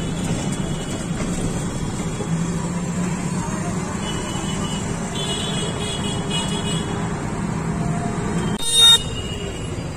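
Auto-rickshaw ride through city traffic: the engine drones steadily under road noise, and a short, loud horn honk comes near the end.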